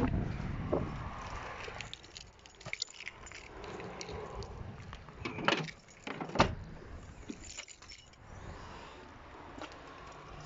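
A Ford hatchback's rear door shuts with a thud at the start. Keys jangle and small clicks follow, then two sharp clicks a little past halfway as the tailgate is unlatched and lifted open.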